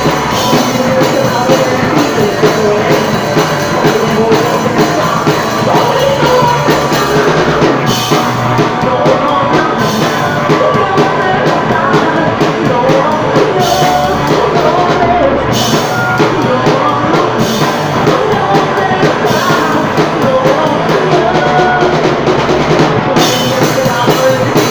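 Live band music with a drum kit keeping a steady beat and a melody line that bends in pitch, loud and continuous.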